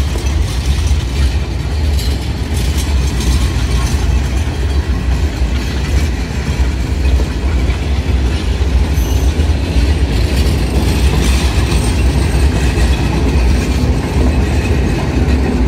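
Rake of passenger coaches rolling past close by: a steady low rumble, with the wheels clattering over the rail joints.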